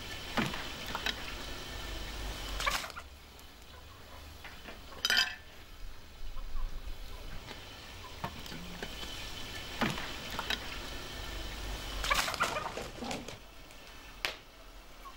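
Domestic fowl in a farmyard calling, a few short calls spaced several seconds apart, with a sharp clack about five seconds in.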